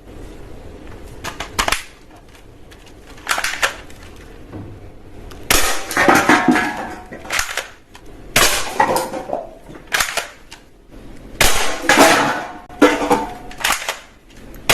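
Hard plastic toy guns and their parts clattering and clicking as they are handled, in about six separate bursts of rattling.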